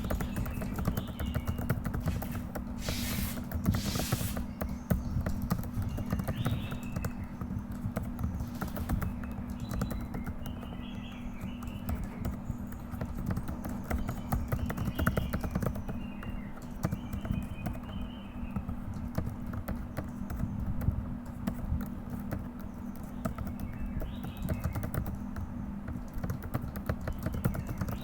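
Continuous fast typing on a computer keyboard: a dense run of keystroke clicks with no pauses, over a steady low hum.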